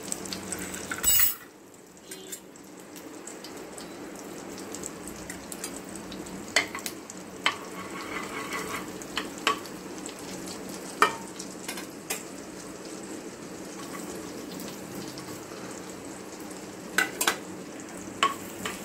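Butter and oil sizzling in a hot pan, with a few sharp clicks of a metal spoon against the pan.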